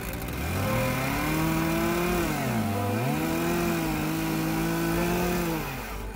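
Robot-mounted chainsaw revving up about half a second in and running at high speed with its bar against a wooden mailbox post. Its pitch sags briefly and recovers around the middle, then winds down just before the end.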